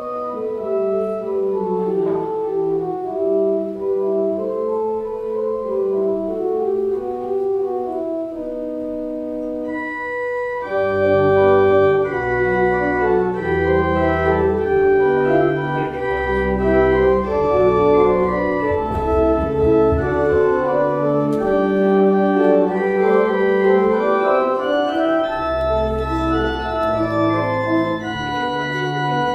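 Organ music: sustained chords and a moving melody line, with deep bass notes coming in about ten seconds in so that the sound grows fuller and louder.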